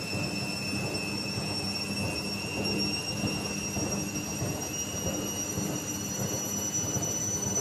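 IFB washing machine running with a steady low rumble and hum, over a high-pitched whine that rises slowly in pitch as the drum turns. This is the unwanted noise that the title ties to the machine's levelling and its drum.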